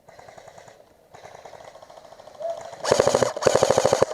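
Airsoft rifle firing on full auto close by: two rapid bursts of sharp clacks, about a dozen a second, starting near the end.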